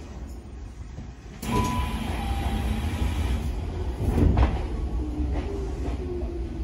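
Shizuoka Railway electric train running on the rails, a steady low rumble that steps up suddenly about a second and a half in and stays louder.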